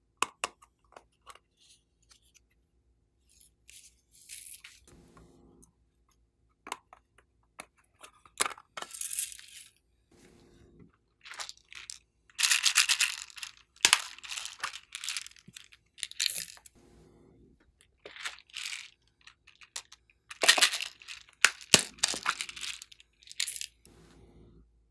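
Hands handling small plastic novelty containers: scattered clicks and taps, with louder crinkling, rustling stretches about twelve seconds in and again about twenty seconds in.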